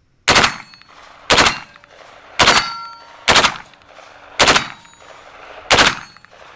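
Heckler & Koch G36C 5.56 mm rifle fired six single shots, roughly one a second and unevenly spaced, each sharp crack trailing off in a short echo. A brief ringing tone follows several of the shots.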